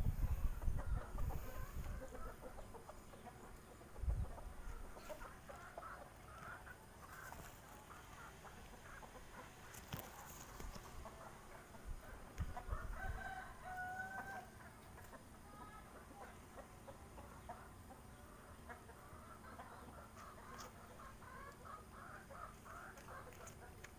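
Chickens clucking and calling faintly in the background, with one longer call a little past halfway. Low rumbling thumps on the microphone near the start and again about four seconds in.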